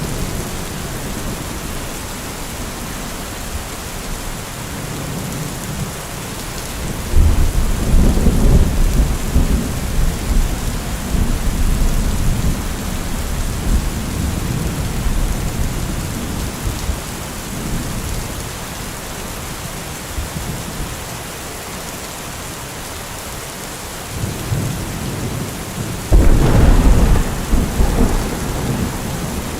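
Steady rain with rolling thunder: a deep rumble swells up about a quarter of the way in and dies away slowly, and a second, sharper clap breaks near the end.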